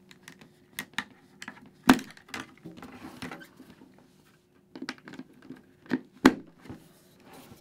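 Clear plastic face shield of a Scorpion Covert FX full-face helmet being fitted back onto its side pivots: handling rustle with sharp plastic clicks, the loudest about two seconds in and a few more late on as the shield is pressed into its mounts.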